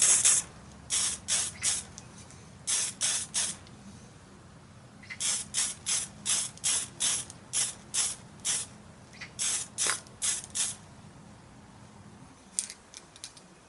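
Aerosol spray can giving many short squirts in quick runs of three or more, each a brief hiss, aimed at a rusty metal hand tool.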